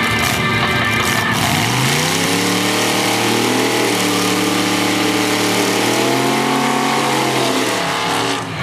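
Drag-prepped Mazda coupe's engine revs up hard about two seconds in and holds high, steady revs through a burnout, then drops back near the end.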